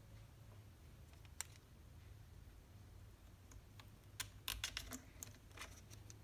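Light clicks and taps of small trimmer parts being handled and fitted during carburetor reassembly: one click about a second in, then a quick cluster of taps near the end, over a low steady hum.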